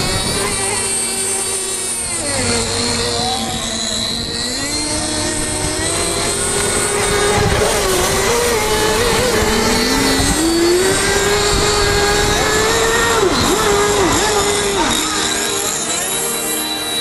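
High-revving 3.5 cc nitro engines of radio-controlled racing boats running on the water, their whine rising and falling in pitch with the throttle. More than one engine note is heard at once, and near the end the pitch drops sharply and recovers a few times as the throttle is chopped and reopened.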